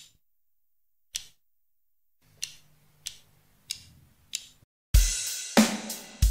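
Count-in clicks: two clicks a little over a second apart, then four evenly spaced clicks about two-thirds of a second apart. A rock backing track then comes in loudly about five seconds in, with a heavy low beat.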